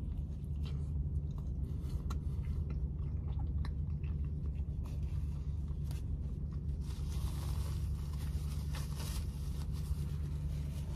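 A person biting into and chewing a sandwich close to the microphone, with many small wet clicks, over a steady low hum. Near the end there are a few seconds of paper rustling as a napkin is used.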